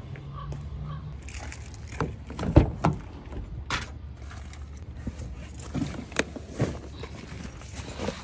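Rear passenger door of an SUV being unlatched and swung open, with a cluster of sharp clicks and knocks about two and a half seconds in, then a few lighter clicks and rattles as things are handled in the back seat. A low steady rumble runs underneath.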